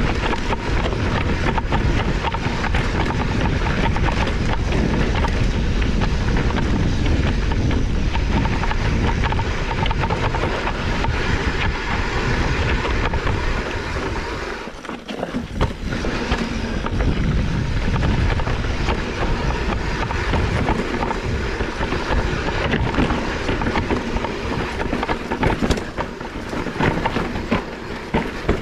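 Mountain bike descending a rough dirt trail: a continuous, loud rattle and clatter of the bike and tyres over the rocky ground, easing briefly about halfway through.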